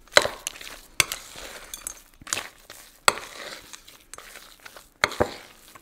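Metal spoon stirring thick cookie dough in a glass mixing bowl, knocking against the glass about once a second with a wet scraping, squishing sound between the knocks.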